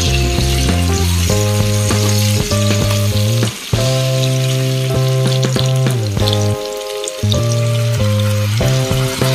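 Pork, green peppers and onions sizzling in a frying pan as they are stirred, over background music of steady held notes. The music drops out briefly twice.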